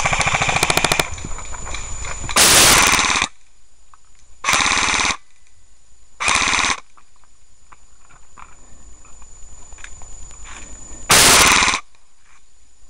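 Airsoft guns firing full-auto bursts in rapid, even ticks. One burst is already running and stops about a second in. Four short, loud bursts follow, the longest about a second, the last after a pause of roughly four seconds.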